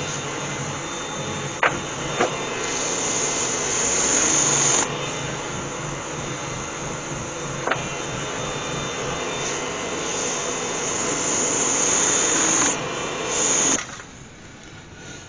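Abrasive sanding the inside of a spalted beech bowl spinning on a variable-speed woodturning lathe: a steady hiss over the lathe's hum, growing brighter and easing off in stretches as the pressure changes, with a few short clicks. Near the end the sanding noise stops sharply.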